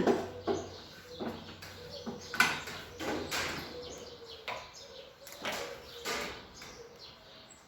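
Head mechanism of an SM104 wooden-crate making machine being turned over by hand as a mechanical check after reassembly: irregular metal clicks and knocks, the loudest about two and a half seconds in.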